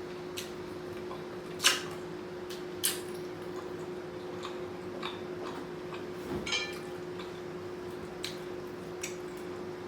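Eating sounds while chewing: a few scattered sharp clicks and smacks, the loudest about a second and a half in, over a steady faint hum.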